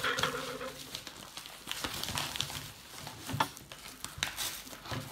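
Irregular clicks, taps and rustles of a shipping package being handled and opened by hand.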